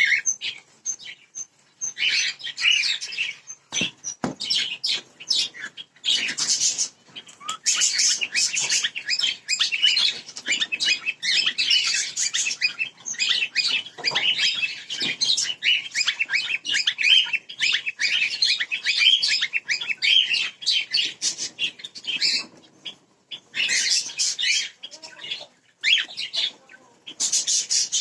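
A flock of cockatiels chirping and calling almost without pause, many short calls overlapping, with a brief thump about four seconds in.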